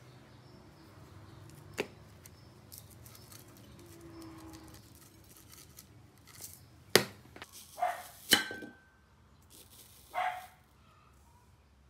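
Small handling sounds of a plastic spice shaker and a wooden fork on a ceramic plate: a few sharp clicks and taps, one clink ringing briefly. Short yelp-like sounds, which may be a small dog barking, come between them.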